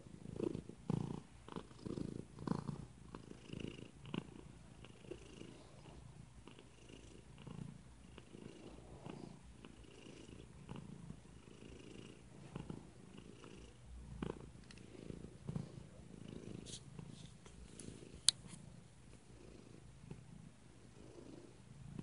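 Domestic tabby cat purring close up, a low pulsing sound that swells and fades with each breath, strongest in the first few seconds. One brief sharp click sounds about eighteen seconds in.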